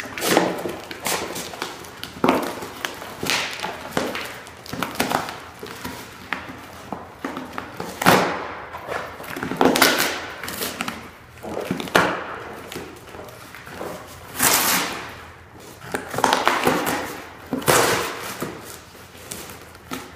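Two Norfolk terriers worrying small cardboard boxes on a hard floor: irregular scraping, crinkling and tearing of cardboard, with the boxes knocking against the floor now and then.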